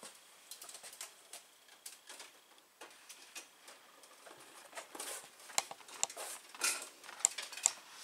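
Electrical wires, 12-gauge, being pushed and pulled through a metal box into a breaker panel: scattered light clicks, scrapes and rustles of wire against metal and cardboard, busier in the last few seconds.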